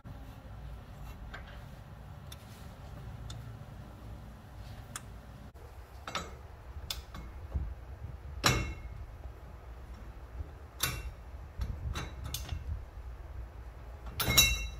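Scattered sharp metallic clicks and clinks of an inner tie rod tool and ratchet being fitted and worked on a car's steering rack tie rod, with a quick cluster of clicks near the end, over a low steady rumble.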